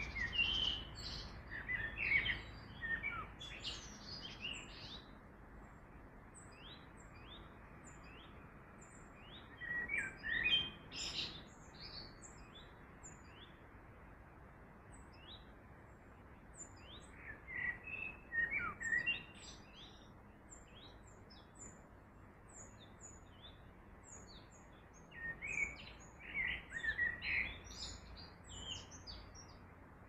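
Songbirds chirping and singing in bursts about four times, with scattered single high chirps between, over a steady rushing of river water.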